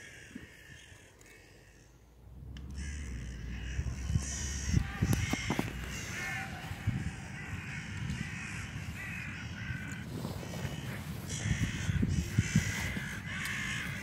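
A flock of crows cawing repeatedly in overlapping calls, a loud racket that starts about two and a half seconds in. Low rumble and a few knocks sound close to the microphone.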